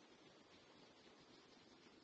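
Near silence: a faint, steady background hiss with no distinct sounds.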